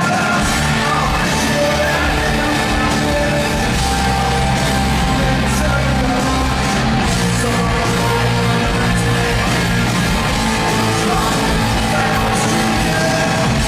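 Live rock band playing a song loudly: electric guitars, bass and drums, continuous throughout.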